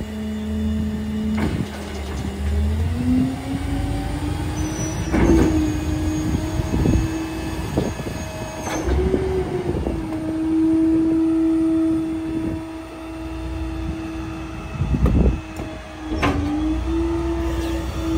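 Garbage trucks' diesel engines and hydraulics running during a dump into a rear loader: the engine note steps up to a higher steady pitch a few seconds in and holds, with several sharp metal clanks and bangs.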